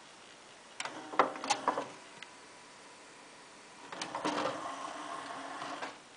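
Sony CDP-C345 five-disc carousel CD changer opening its tray: a quick run of mechanism clicks and clunks about a second in, then a steady motor-and-gear whir for about two seconds as the tray slides out, stopping suddenly near the end.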